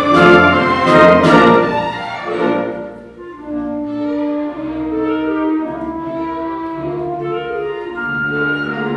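A full orchestra of strings and brass playing a waltz. It opens loud with a few sharp accented chords, then falls away after about two and a half seconds to a quieter passage of held notes.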